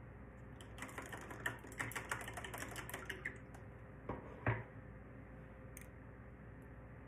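A quick run of light clicks and taps lasting about two and a half seconds, then two sharper knocks, the second the loudest.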